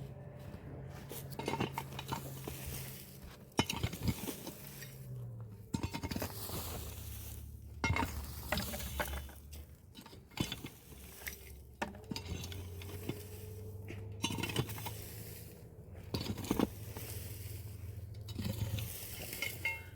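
Irregular clinks, scrapes and knocks of hard objects being handled, over a steady low hum that drops in pitch about five seconds in and rises again about twelve seconds in.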